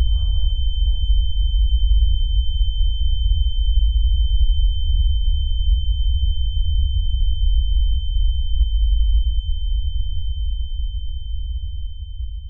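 A steady high-pitched ringing tone held over a loud, deep rumbling drone: a film sound-design effect. The drone begins to fade near the end while the tone keeps ringing.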